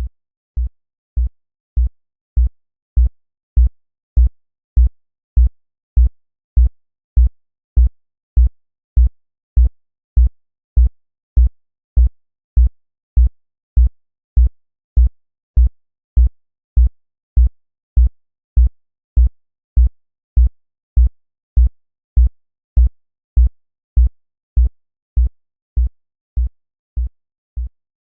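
Synthesized heartbeat in a steady, normal rhythm at 100 beats a minute: one deep, low thump about every 0.6 seconds. It grows louder over the first few beats and eases slightly near the end.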